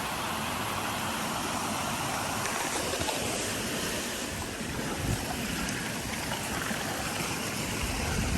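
Mountain creek rushing over rocks: a steady, even hiss of flowing water, with a few low bumps about five seconds in and near the end.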